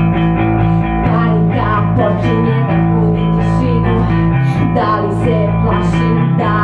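A rock band playing live: electric guitar and bass guitar over drums, with repeated cymbal strokes.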